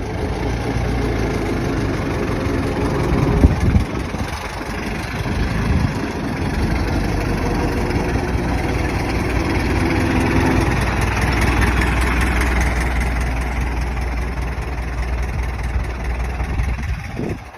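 Old car engine running with a low, uneven hum and one sharp loud bang about three and a half seconds in. The engine sound drops away just before the end.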